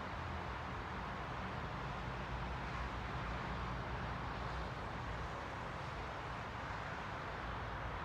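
Steady ambient rumble and hiss, even throughout with no distinct events.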